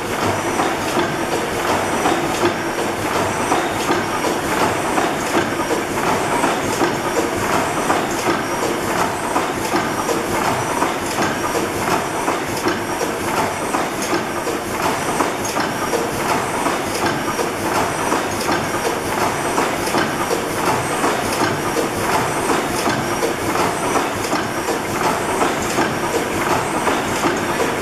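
Snow-Holly Works (Worthington) 600-horsepower horizontal reciprocating natural gas engine running, a steady dense mechanical clatter with a fast ticking rhythm.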